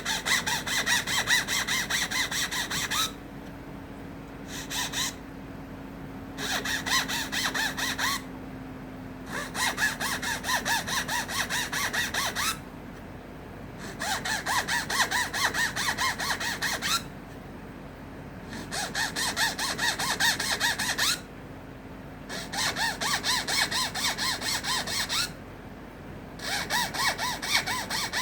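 Small power tool grinding the teeth of a wooden comb to points, in repeated bursts of two to four seconds with short pauses between. A faint steady hum runs underneath.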